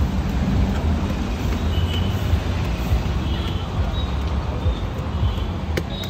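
Steady low rumble of road traffic, with a few faint high clinks and one sharp click near the end.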